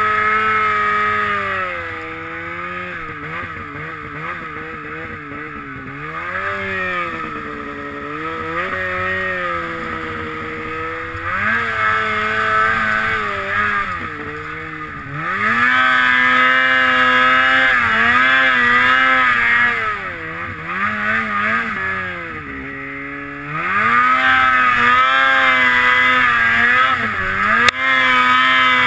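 Snowmobile engine running under a rider in powder, its note rising and falling with the throttle. It eases off about two seconds in, opens up hard around halfway, and opens up again after a short lull some five seconds from the end.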